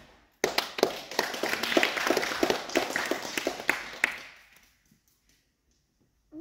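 A small group of spectators applauding, starting suddenly about half a second in and dying away after about four seconds, with single claps standing out.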